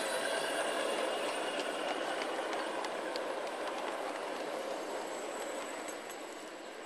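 Steel wheels of a ride-on scale train's riding cars rolling along the track past the listener, with a few faint clicks from the rail joints. The sound fades slowly as the train moves away.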